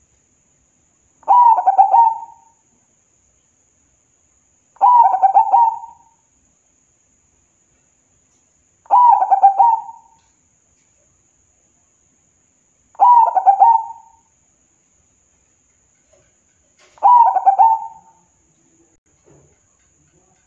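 Zebra dove (perkutut) singing its cooing song: five short phrases about four seconds apart, each about a second long.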